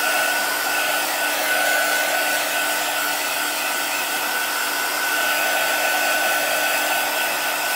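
Handheld craft heat tool blowing steadily, a fan rush with a steady motor whine, as it dries chalk paste on a sign.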